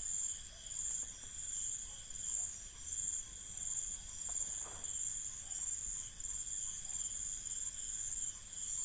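Crickets chirping at night: a steady high trill with another cricket pulsing about one and a half times a second over it.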